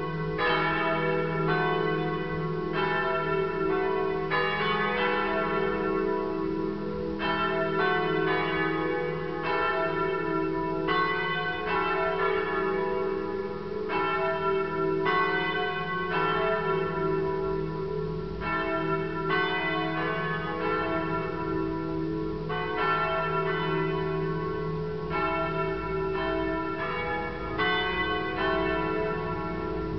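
Several bells of Pistoia Cathedral pealing together, their strokes overlapping and falling roughly once a second, over a steady ringing hum.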